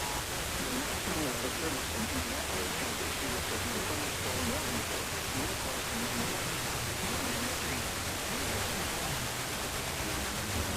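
Radio static: a steady hiss from a receiver on a weak signal, with a faint, barely audible voice underneath.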